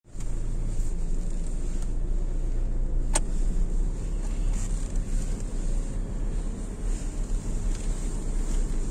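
Car moving slowly, heard from inside the cabin: a steady low rumble of engine and tyres on paving, with a single sharp click about three seconds in.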